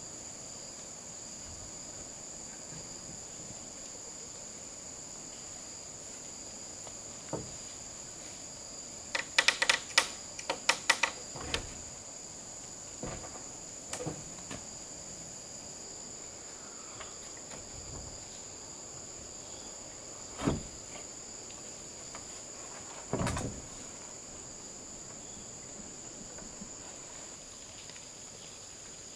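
Steady high-pitched buzz of insects, like crickets, with a quick cluster of sharp knocks about nine to twelve seconds in and a few single knocks later.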